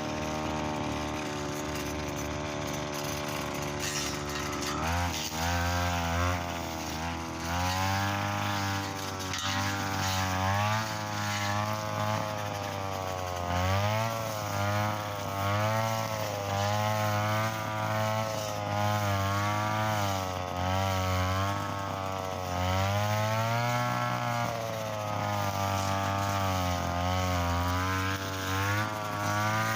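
Brush cutter engine running steadily for the first few seconds, then from about five seconds in revving up and down again and again as it cuts thick, stiff field grass with 2.4 mm trimmer line.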